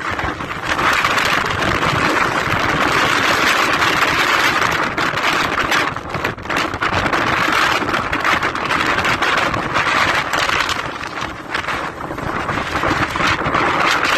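Blizzard wind blowing in gusts, a loud rushing hiss that swells and dips, with heavy wind noise on the microphone.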